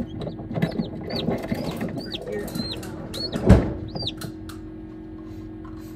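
Newly hatched chick peeping: about seven short, high cheeps, each rising and falling, between one and four seconds in, over rustling as it shifts among the eggs. A single thump about three and a half seconds in.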